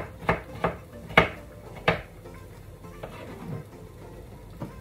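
Dishes and utensils clattering in a kitchen sink: a run of sharp clinks and knocks in the first two seconds, the loudest just over a second in, then a few faint ones.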